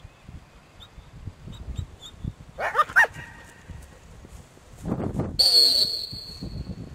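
Boykin spaniel giving a short, pitched whining yelp about three seconds in as it is sent out on a retrieve. About two seconds later comes a louder burst carrying a high, steady tone that fades over a second and a half.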